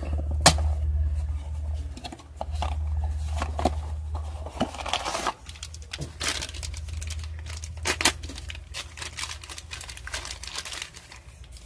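Plastic wrap being torn and crinkled off a small cardboard Funko Mystery Minis blind box, with many sharp clicks and crackles as it is handled and opened, the loudest about half a second in.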